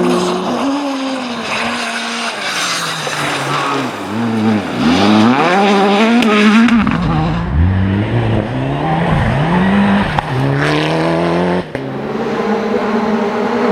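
Rally car engine revving hard, its pitch climbing and falling as it works through the gears. The pitch drops sharply several times, and the sound breaks off abruptly near the end before the engine note resumes.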